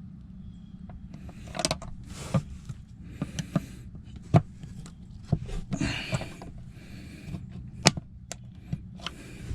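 Sharp plastic clicks, knocks and scraping as a rear-seat latch release handle is pried and worked out of its mounting. The loudest snaps come at about 4.5 and 8 seconds in, over a steady low hum.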